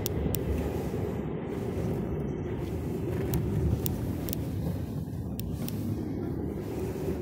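Steady low road and tyre rumble inside the cabin of a Tesla electric car driving along, with no engine note, and a few faint, irregularly spaced sharp clicks.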